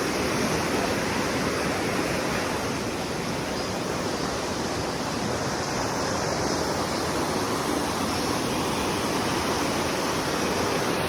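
Steady rush of a rocky mountain stream: fast water pouring over boulders, an even continuous noise.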